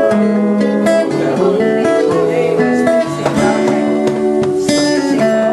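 Music played on guitar, with strummed chords and held notes changing every half second or so.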